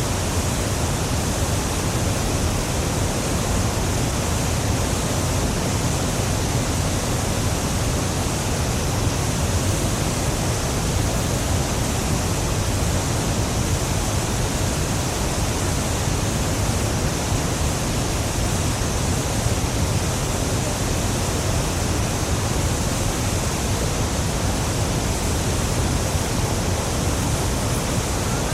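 Niagara Falls: the steady, unbroken rush of a very large waterfall, a dense even roar heavy in the low end with hissing spray on top.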